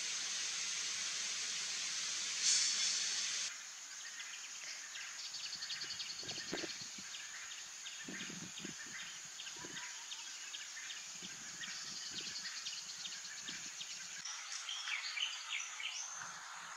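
Outdoor natural ambience. A steady rushing hiss for the first few seconds gives way to rapid repeated insect or bird chirping. Sharper bird calls come near the end.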